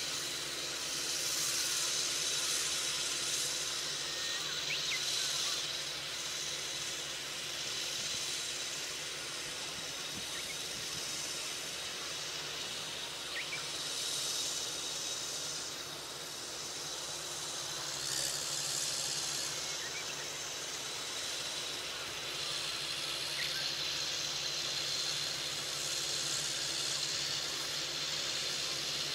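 Open-field ambience: a steady hiss that swells and eases every few seconds, over a faint, steady low drone from a distant tractor engine, with a few faint short chirps.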